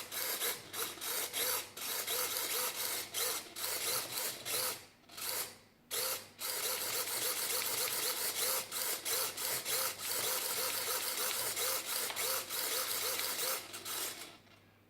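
Hobby servo motors whirring and buzzing in many short back-and-forth strokes as their arms are swung, with a brief pause about five seconds in.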